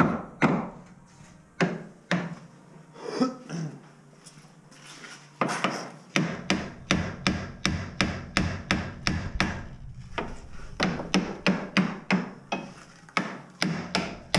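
Hammer blows on the steel front suspension parts of a BMW E34, knocking at pieces to free them while the front control arms are taken off. A few scattered strikes at first, then a steady run of about two to three blows a second with a short pause partway through.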